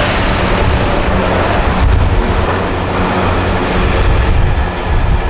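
Train passing close by at speed: a loud, steady rush of wheels on rail over a deep rumble.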